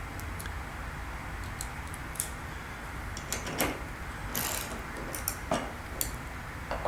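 Irregular metal clicks and clacks of a Bovidix wrench head being taken out of the ratchet handle, turned around and seated again. The heads are non-reversible, so flipping the head is how the drive direction is reversed.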